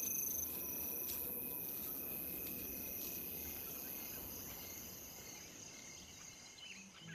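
Night insects chirring: several steady high-pitched trills over a soft hiss, fading out gradually toward the end.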